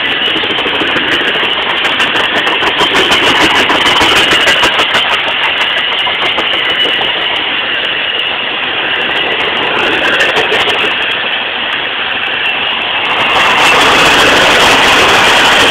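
Freight train of tank cars rolling past close by: a steady rumble and rattle of steel wheels on the rails, growing louder near the end.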